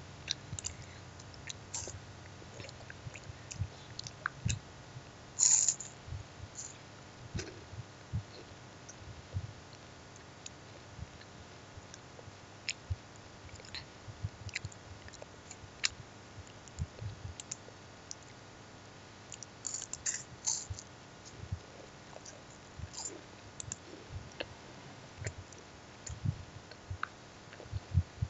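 Scattered short, sharp clicks and small noises close to the microphone, coming irregularly with brighter clusters about five seconds and twenty seconds in.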